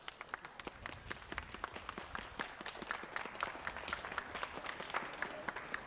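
Many people walking on pavement: a quick, irregular patter of hard shoe steps from a marching crowd.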